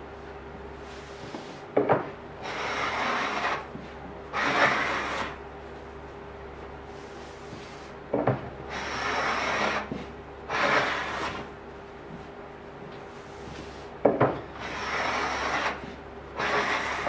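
Wooden hand plane taking long strokes along a solid-wood desktop, each pass a rasping hiss of the blade cutting a shaving, about a second long. The strokes come in pairs, each pair starting with a sharp knock, three times over.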